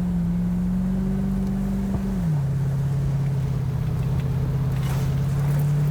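V8 exhaust drone through Black Widow Neighborhater mufflers, heard inside the cabin while cruising. The pitch steps down a little over two seconds in as the revs drop, then holds steady.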